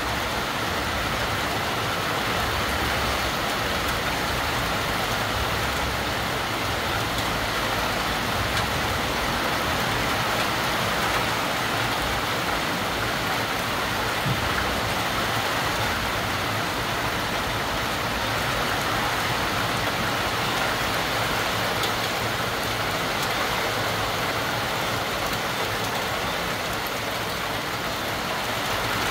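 Heavy rain falling in a steady downpour on trees and rooftops, an even hiss that neither builds nor eases.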